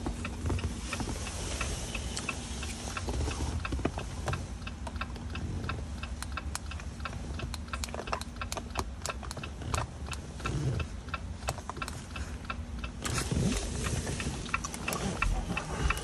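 2021 Jeep Wrangler's hazard-light flasher ticking in a steady, even run, over a low steady hum. The hazards are on as the smart-key programming procedure requires.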